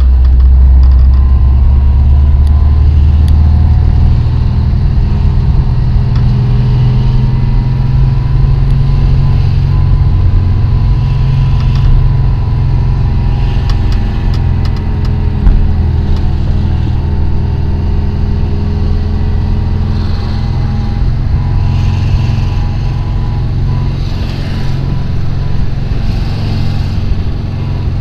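A car's engine and tyre noise heard from inside the cabin while driving, a steady low rumble.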